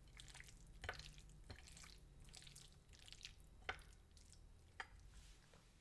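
Near silence with a few faint, short wet ticks, about five spread out.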